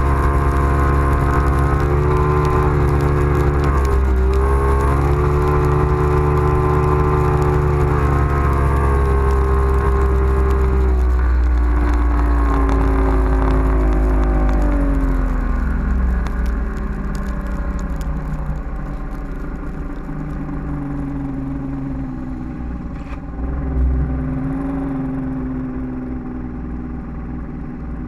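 Bass boat's outboard motor running hard at speed, then throttled back a little under halfway through, its pitch falling and the sound dropping as the boat slows and runs on at a lower speed.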